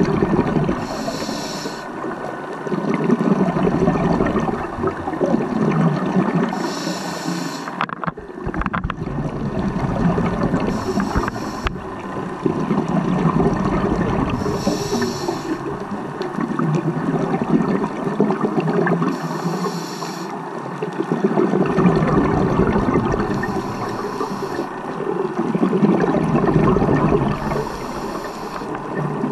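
Scuba diver breathing through a regulator underwater. A short hissing inhale comes about every four seconds, each followed by a longer rush of exhaled bubbles.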